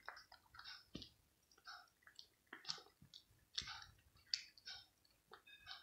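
A cat eating pieces of cooked mackerel in gravy: quick, irregular wet chewing and smacking clicks, a few a second.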